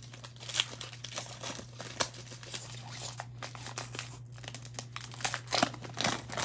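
Panini Prizm Draft Picks trading-card pack wrapper being torn open and crinkled, in quick irregular crackles that start about half a second in.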